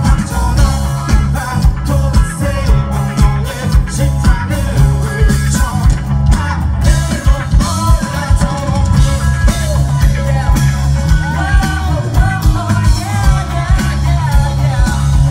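Live rock band playing: a man singing over acoustic guitar, electric bass and drum kit, loud and heard from within the audience.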